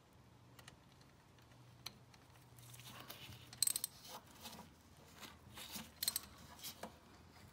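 Hand socket ratchet clicking as it tightens the 6 mm Allen oil drain plug back in: scattered bursts of clicks in the second half, the sharpest about three and a half and six seconds in.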